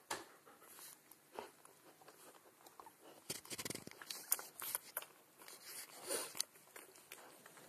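Two-day-old Alaskan Malamute puppies suckling at their mother's teats: wet smacking and sucking clicks in irregular quick clusters, busiest between about three and five seconds in.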